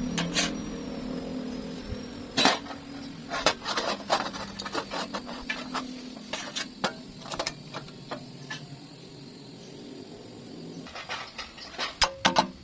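Irregular metallic clinks and knocks over a steady low machine hum, with the knocks coming in a quicker run near the end.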